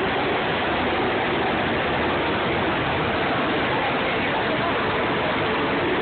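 Steady crowd din in a large exhibition hall: many voices and movement blurred into one even noise, with no single sound standing out.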